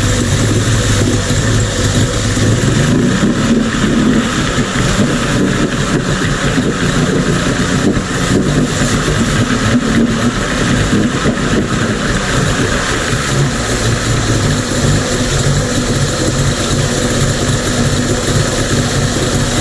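Mercury 50 two-stroke outboard motor running steadily at idle with a new fuel filter fitted, now idling without the roughness and stalling it had before the filter change.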